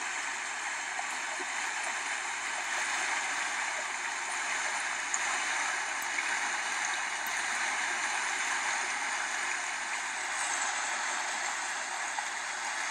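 Shallow mountain creek flowing steadily over stones, an even rush of water.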